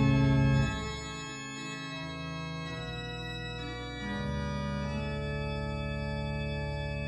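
Church pipe organ holding sustained chords at the close of a piece. A violin's held note ends under a second in, leaving the quieter organ chords, which change twice.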